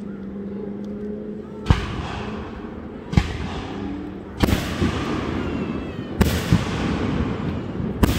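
Aerial firework shells bursting overhead: five sharp bangs about a second and a half apart, each followed by a rolling echo.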